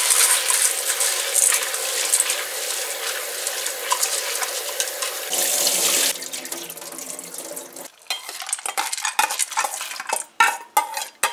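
Kitchen tap running and splashing into a stainless steel bowl as yellow split peas are rinsed by hand. The water stops about eight seconds in, followed by clinks and scrapes of a metal spoon against the steel bowl and pot as the peas are tipped into the pot.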